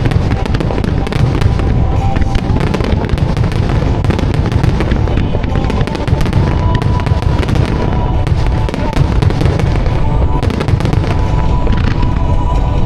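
Dense barrage of firework shells bursting and crackling in quick succession over a continuous low rumble, with the show's synchronised music playing over loudspeakers.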